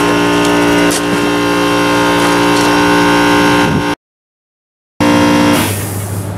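A loud, steady machine hum holding one unchanging pitch, with a single click about a second in. It drops out completely for about a second near the end.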